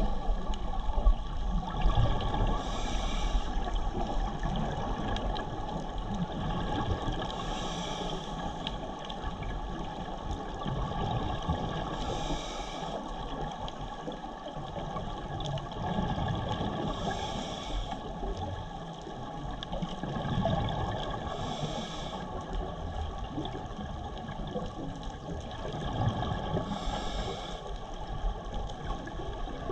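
Scuba regulator breathing underwater: a short hiss of inhalation about every five seconds, over a steady rushing background noise.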